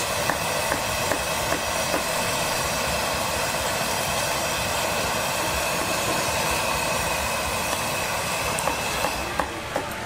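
Battered squid pieces deep-frying in a wok of hot oil: a steady, loud sizzle with small crackles and pops, softening a little near the end.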